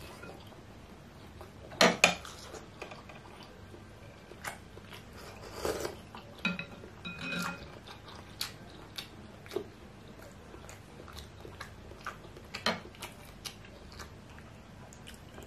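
Close-miked eating of a large beef meatball: chewing and mouth noises, with scattered sharp clinks of a metal fork against ceramic dishes. The loudest clinks come about two seconds in and again near the end.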